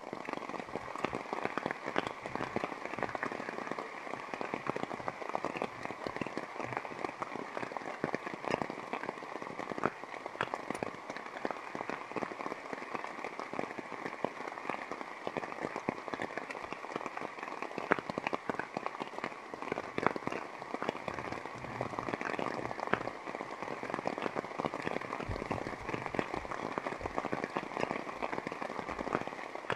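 Steady rain falling, a dense patter of countless small drops hitting the lake surface and ground.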